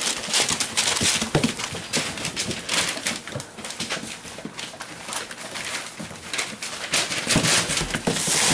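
Six-week-old Great Dane puppies wrestling on newspaper: sheets of paper rustling and crinkling under scrabbling paws, with a few short puppy growls.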